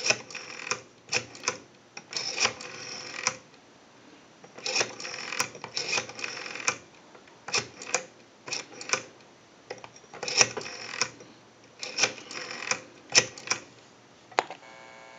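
Rotary dial of a Western Electric wooden wall telephone being wound and let go digit after digit. Each return of the dial gives a quick train of clicks as it pulses the number out to dial a call. Near the end a steady tone comes on the line.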